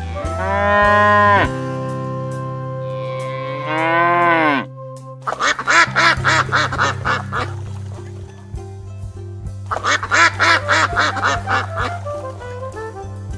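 Cows mooing twice, each a long call that rises and falls in pitch. Then white domestic ducks quack in two rapid bouts, from about five seconds in and again near ten seconds. Background music plays underneath.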